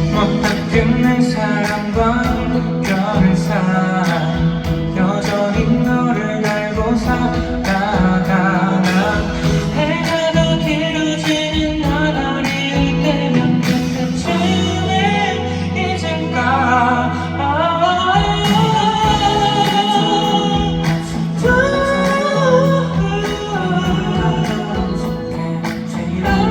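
Live pop song through a concert hall's sound system: a male lead vocal sings over the band backing, which has a steady drum beat.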